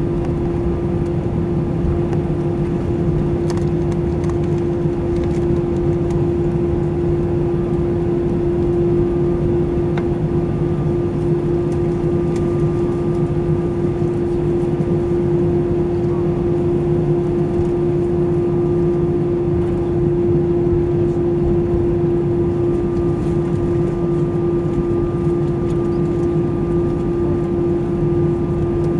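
Airbus A320 cabin noise during taxi after landing: the steady hum of the engines at taxi idle and the cabin air, with one strong steady tone running through it.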